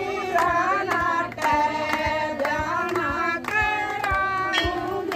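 Women singing a Hindu devotional bhajan together, with a steady beat of about two strokes a second that fits hand clapping.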